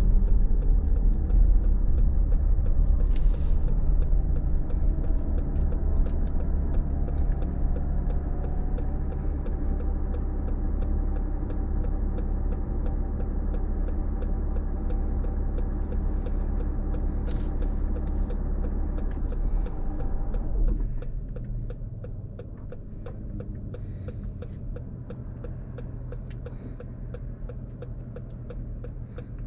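Car cabin road noise and low rumble as the car slows, then drops suddenly to a quieter engine idle about two-thirds of the way in as it comes to a stop. A steady, even ticking of the turn signal runs throughout, about one and a half clicks a second.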